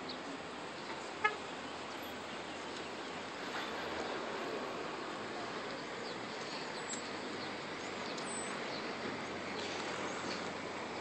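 Steady outdoor background noise, with one short, sharp click about a second in.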